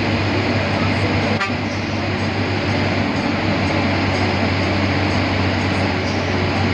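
Economy air-conditioned bus running steadily, its engine and road noise heard from inside, with one short click about a second and a half in.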